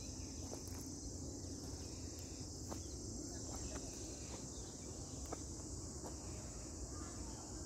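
Insects chirring steadily in one continuous high-pitched drone, with a few faint clicks over it.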